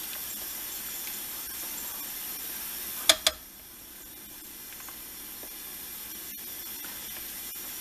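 A spoon stirring cooked pinto beans in a slow cooker's crock, with two sharp knocks in quick succession about three seconds in, over a steady hiss.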